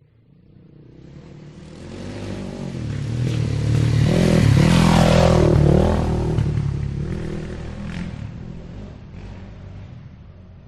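Motorcycle engine passing by: it fades in from silence, grows louder for about four seconds, is loudest around five seconds in as its engine note bends, then fades away.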